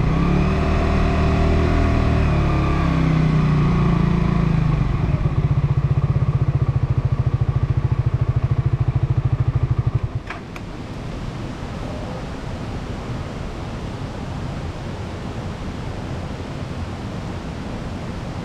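Suzuki GSX-R150's single-cylinder engine easing off, then idling with an even beat for about five seconds before it cuts out suddenly about ten seconds in, with a click or two. A steady, quieter hiss of the surroundings follows.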